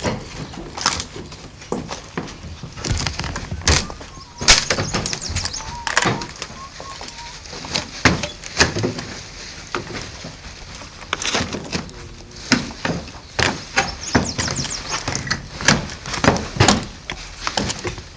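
Hand-tool demolition on a wooden building: irregular hammer knocks and bangs, roughly one to three a second, with the loudest blow about four and a half seconds in.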